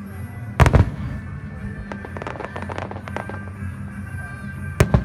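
Fireworks display: a loud double boom of aerial shells a little over half a second in, a stretch of crackling, then another loud boom near the end.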